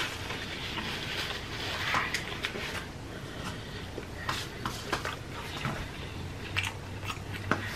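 Close-miked chewing of a mouthful of food: a soft wet texture at first, then scattered wet mouth clicks and smacks.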